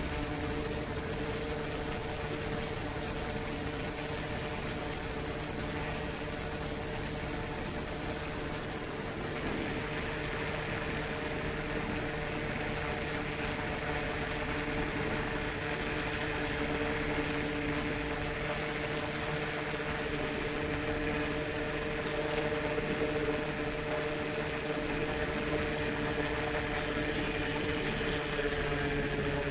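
Paramotor engine and propeller running steadily in flight, a constant hum under the rush of wind; the hiss grows a little about nine seconds in.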